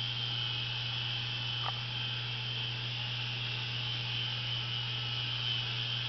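Air Hogs Havoc Heli toy helicopter hovering: its small electric motors and spinning rotors give a steady low hum under a high, slightly wavering whine.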